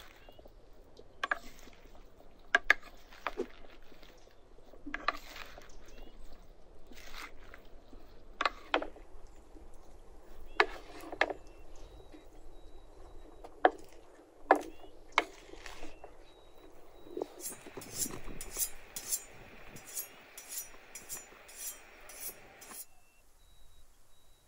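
Wooden salad servers knocking and scraping against a wooden bowl as a leafy salad is tossed, with sharp clacks about once a second and the leaves rustling. Past the middle the tossing turns quicker and even, two or three strokes a second, and stops suddenly shortly before the end.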